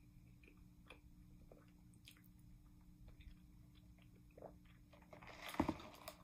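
Faint close-up chewing and mouth sounds. About five seconds in, a louder slurping sip through a straw from a plastic cup of iced coffee, with a short knock as the cup is moved.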